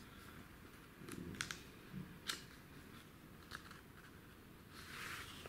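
Faint crinkles and small crisp clicks of an old paper brochure being handled and unfolded, a few sharp ones between one and two and a half seconds in, then a softer rustle near the end.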